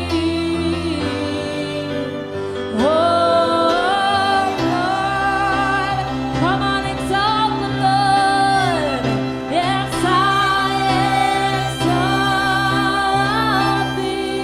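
Live worship music: a woman singing long, held notes that slide up and down over sustained instrumental chords, the voice coming in strongly about three seconds in.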